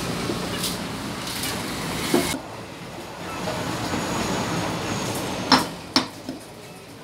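Butcher's cleaver chopping goat meat on a wooden chopping block: a few sharp chops, the loudest two about five and a half and six seconds in. Steady background noise drops away suddenly after about two seconds.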